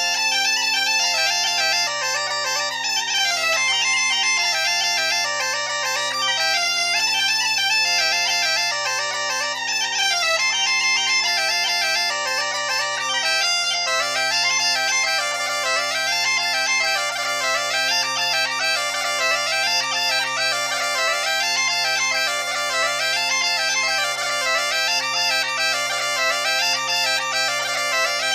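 Two Galician bagpipes (gaitas) playing a tune together, the chanters carrying a lively melody over a steady, unbroken drone.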